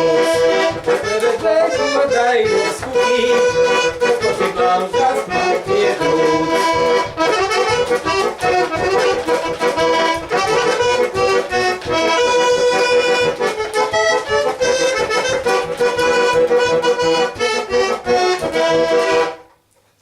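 Garmon (Russian button accordion) playing an instrumental melody over a rhythmic pumping bass-and-chord accompaniment, stopping abruptly near the end.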